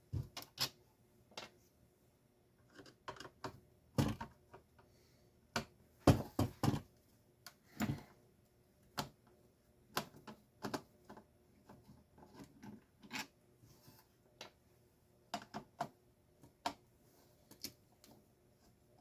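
Irregular clicks, taps and knocks of parts being handled and taken apart on a Stanley garage door opener's gearbox, with a louder cluster of knocks about six seconds in.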